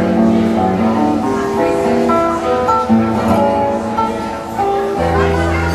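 Acoustic guitar playing a melody of held single notes over a low bass note. The bass drops out about a second in and comes back near the end.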